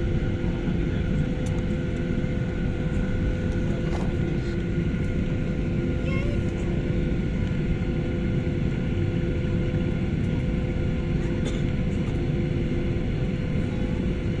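Airplane engines running at a steady pitch: a constant low rumble with a steady hum over it that neither rises nor falls.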